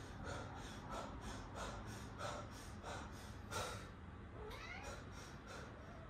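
Faint, steady heavy breathing, one breath about every two-thirds of a second, from someone out of breath after dancing. A cat gives one short rising meow about halfway through.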